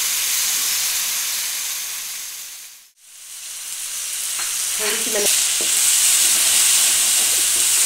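Moong daal frying in ghee in a pan, a steady sizzle with a wooden spoon stirring through it. The sizzle fades out about three seconds in and then comes back.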